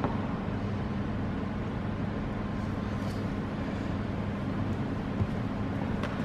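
A steady low rumble of background noise, with a light knock at the start as a phone is set down on a wooden floor, and a single thud about five seconds in.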